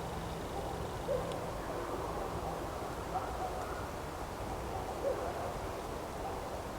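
Wind blowing through forest trees as a steady rush, with short low calls about every two seconds.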